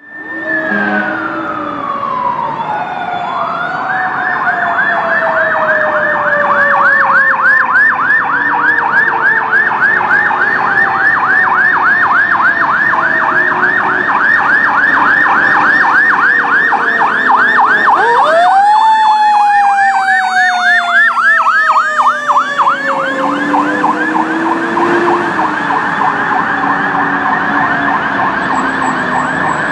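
Fire engine's electronic siren sounding a fast yelp, about four sweeps a second, after a falling wail at the start. About two-thirds of the way through, a second siren tone rises quickly and then slowly falls beneath the yelp.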